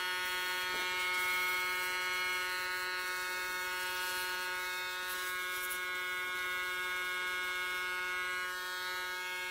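Paint sprayer's motor running with a steady buzzing hum while primer is sprayed; it starts and cuts off abruptly.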